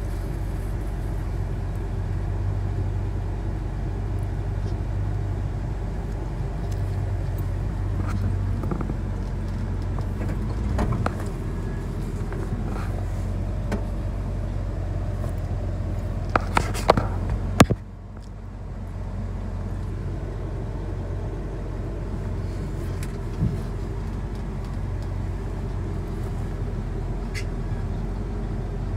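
Old Chevy K20 pickup's engine running, heard from inside the cab as the truck rolls slowly, with a few sharp clunks a little past halfway, after which the sound suddenly drops to a quieter steady hum.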